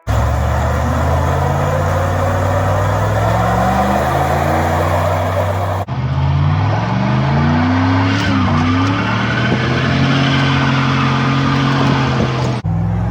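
Car engine revving and accelerating hard, its pitch climbing and dropping, with tyre noise over it. The sound is broken by two abrupt cuts, about six seconds in and near the end.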